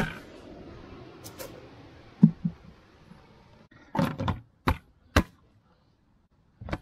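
Plastic lid of a Leaktite bucket being pressed down onto the bucket: a dull thump a couple of seconds in, then a run of sharp plastic snaps and knocks as it is pushed home around the rim.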